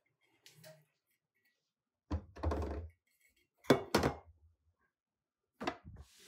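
Drink bottles set down on a kitchen counter, making hollow thunks and knocks: one about two seconds in, a sharp close pair halfway through, and two more near the end.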